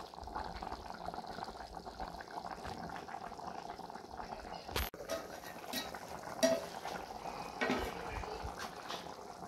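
A pot of pumpkin-leaf vegetables simmering with a steady bubbling, while a plastic spoon stirs and scrapes peanut butter paste in a plastic bowl, with a few light taps. A sharp click comes about five seconds in.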